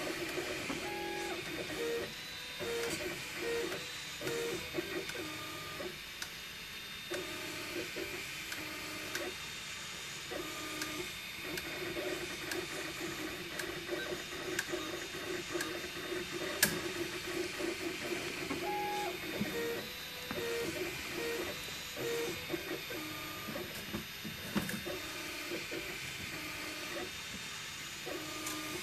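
MakerBot Replicator 2 desktop 3D printer printing: its stepper motors sing in short tones that keep changing pitch as the extruder head moves back and forth, over a steady fan hiss. A single sharp click comes about two-thirds of the way through.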